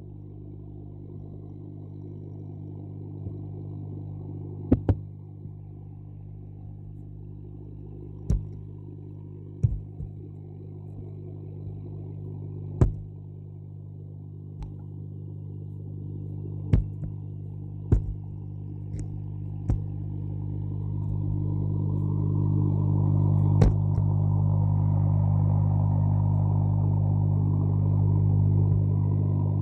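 A dozen or so sharp, scattered pops made by catfish in a pond, over a steady low hum that grows louder about two-thirds of the way through.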